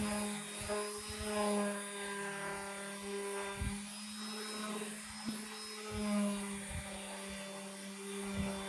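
An electric power tool's motor running steadily, its pitch wavering slightly, with a few short knocks.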